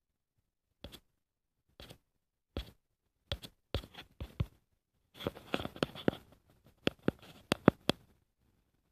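Scattered scratchy clicks and rustles of handling noise. They come one at a time at first, grow denser from about halfway, and end with several sharp clicks near the end.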